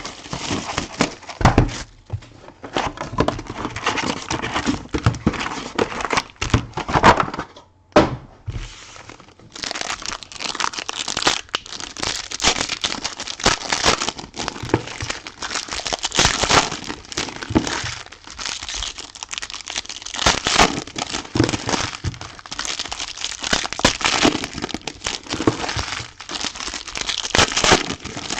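Plastic wrapping on a box of trading cards crinkling and tearing as it is unwrapped and opened, with a short lull about eight seconds in.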